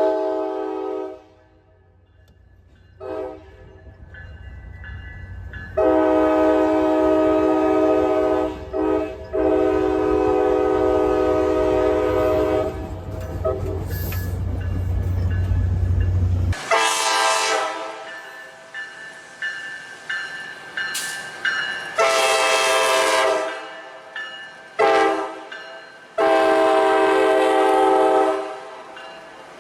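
Tri-Rail cab car horn sounding a steady chord in a series of blasts: one long blast of about seven seconds, then several shorter blasts. A low train rumble runs under the first half.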